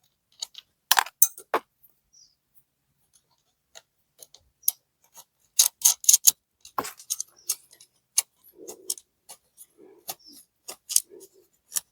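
Irregular small metallic clicks and taps as nuts are threaded onto the tail-light mounting studs and tightened with a small wrench, with a quick run of clicks about six seconds in.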